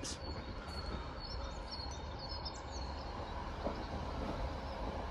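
Outdoor ambience: a steady low background rumble, with small birds chirping faintly during the first three seconds or so.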